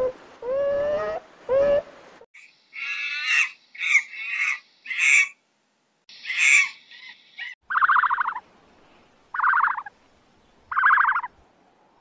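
A run of animal calls. First come a few short whining beaver calls. About two seconds in, a monkey gives about six harsh, high screeches in quick succession. From near the end of the eighth second come four evenly spaced buzzy calls, about a second and a half apart.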